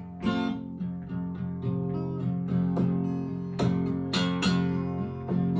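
Acoustic blues guitar playing an instrumental fill between sung lines: picked notes struck about twice a second over a held bass.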